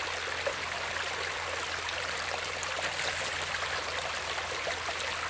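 Steady rush and trickle of creek water running over rocks.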